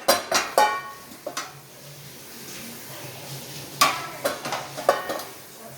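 Metal vessels and dishwasher rack clattering: a few sharp knocks, some leaving a short metallic ring, in two clusters, one at the start and one about four seconds in.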